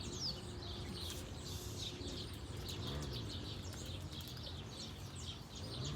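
Small birds chirping: many short, high chirps and calls repeating throughout over steady outdoor background noise.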